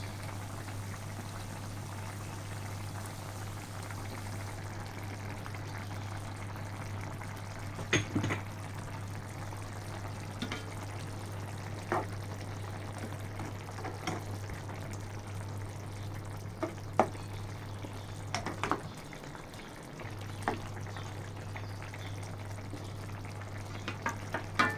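Eggplant and prawns in coconut milk simmering and bubbling in a pot, over a steady low hum, with a few short sharp clicks scattered through.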